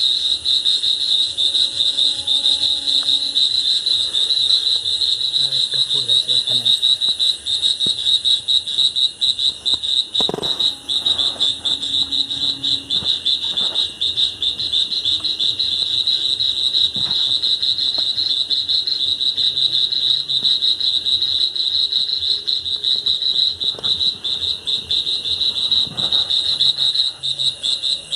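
Dense night chorus of calling animals: a loud, unbroken high trill that pulses rapidly, with a few faint knocks.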